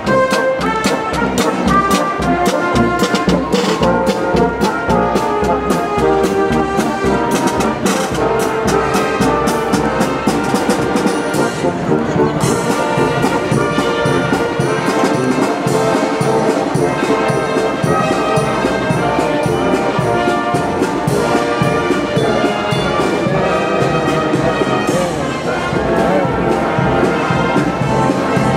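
Brass marching band playing a march: trumpets, trombones and sousaphone over a steady drum beat, the drum strokes dropping away about halfway through while the brass plays on.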